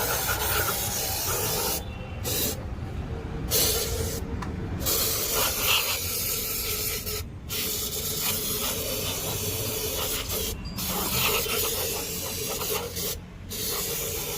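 Hissing spray that cuts off and starts again several times, in short on-off bursts.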